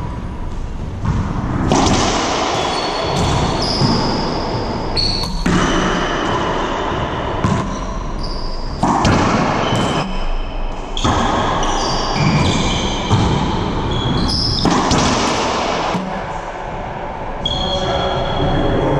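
Racquetball rally in an enclosed court: a string of sharp cracks from racquet strikes and the ball hitting the walls and hardwood floor, each ringing off the bare walls, with short high squeaks from sneakers on the floor between the hits.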